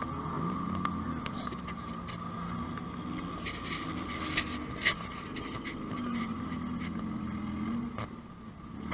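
Stock car engines running and revving as the race cars roll out past, the engine note rising and falling several times over a steady high whine. Two sharp knocks sound about four and a half to five seconds in.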